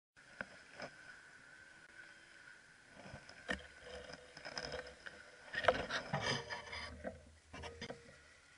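Handling noise: rustling, rubbing and light knocks of hands, clothing and a fishing rod moving among dry reed stalks, with scattered clicks and a louder burst of rustling a little past the middle.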